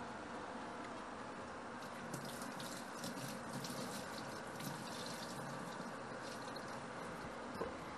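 Kitchen tap running into a stainless steel sink, the water splashing over gloved hands as they are rinsed. The water hiss is strongest from about two seconds in until about six seconds, over a steady low background noise.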